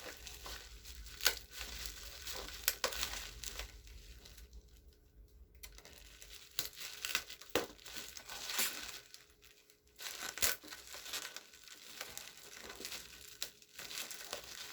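Parcel packaging being torn open and crumpled by hand: irregular rustling and crinkling with a few sharp snaps of tearing.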